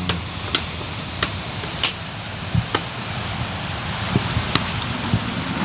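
Rain falling as a steady hiss, with scattered light clicks and knocks.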